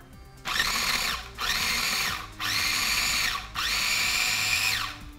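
Small electric food processor pulsed four times, each burst about a second long, the motor whining up to speed and winding down again, as it chops pickles, onions, lemon zest and herbs.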